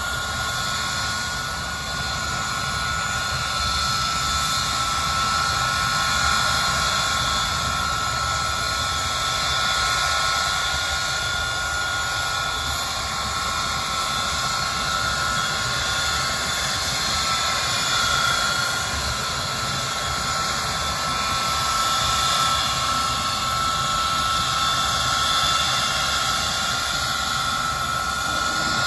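Avro Vulcan XM655's Rolls-Royce Olympus turbojets running steadily in a ground run: a high, even whine over a constant rush of jet noise.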